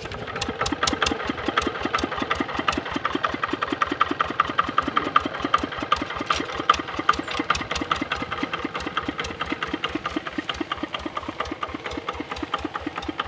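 Kubota RD65 single-cylinder diesel engine on a hand tractor, running steadily with a rapid, even beat of firing pulses; it comes in abruptly right at the start.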